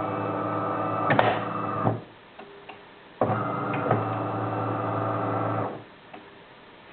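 DeLonghi Magnifica ESAM 4200 automatic espresso machine running with a steady buzzing hum in two bursts. The hum has a brief louder rattle about a second in, stops for about a second, then starts again and cuts off suddenly near the end.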